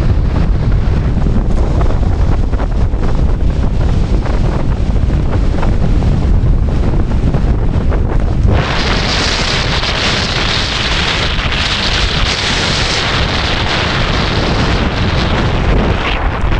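Gale-force wind of a mountain ground blizzard buffeting the microphone with a steady heavy rumble. About eight seconds in, a loud, harsh hiss sets in suddenly on top of it and holds.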